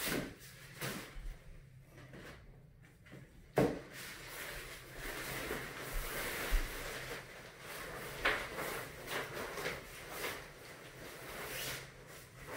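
Nylon shade cover of a pop-up tent rustling and swishing as it is unhooked and pulled off the frame, with a sharp click about three and a half seconds in and a few lighter clicks later.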